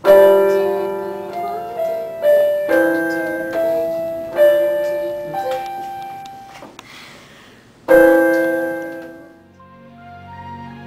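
Digital piano played slowly: single notes and chords that each ring and fade, ending on a chord about eight seconds in that dies away. Near the end, quieter background music takes over.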